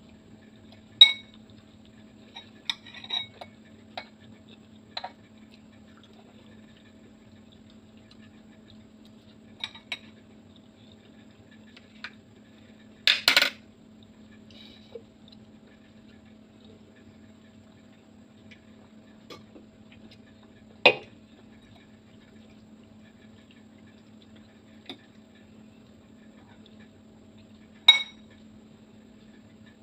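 A metal fork clinking and scraping against a ceramic bowl now and then, with short ringing clinks. The loudest is a longer clatter about halfway through. A steady low hum runs underneath.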